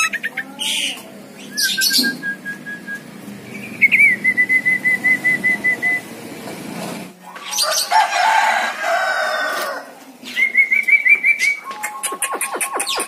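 Javan myna (jalak kebo) calling and mimicking: a string of whistled notes and quick trills, broken by a harsh rasping stretch in the middle, then a rising trilled run near the end.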